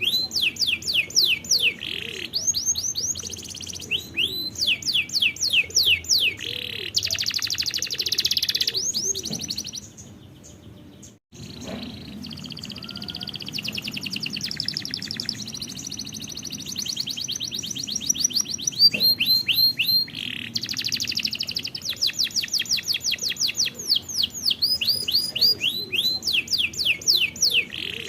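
Domestic canary singing a long song made of repeated phrases: runs of quick sweeping whistled notes, several a second, alternating with fast rattling trills. The song breaks off briefly about ten to eleven seconds in, then carries on.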